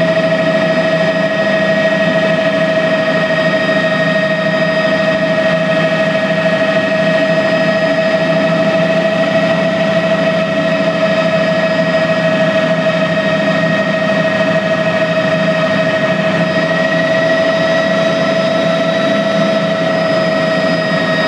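Helicopter engine and rotor noise heard from inside the cabin while descending to land: a steady loud drone with a constant high whine.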